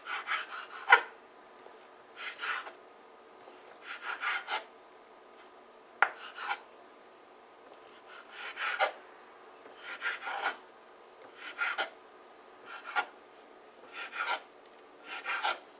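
Kitchen knife cutting rolled roti dough into strips on a wooden cutting board: short scraping strokes of the blade against the board, about ten of them, roughly one every second and a half.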